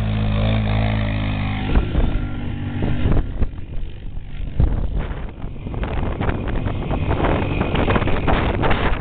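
ATV (quad) engine revving up and then running steadily, with wind buffeting the microphone and rough knocks taking over from about three seconds in.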